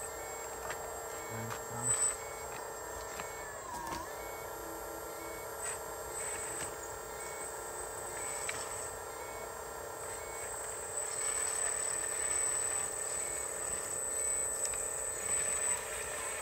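Steady whine from a radio-controlled model hydraulic excavator's pump and electrics, with a brief dip about four seconds in. Thin high-pitched beeps come and go over it.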